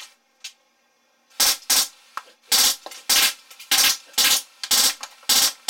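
Drozd Blackbird full-auto BB gun, powered by high-pressure air, firing about eight short bursts roughly half a second apart from about a second and a half in, with the BBs striking the toy targets.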